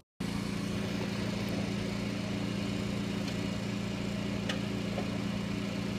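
Steady low machine hum holding one even pitch, with a split-second dropout at the very start.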